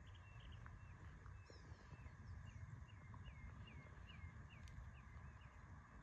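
Faint birdsong: a run of short whistled notes, each dropping in pitch, repeated a little over twice a second through the middle, over a low steady rumble.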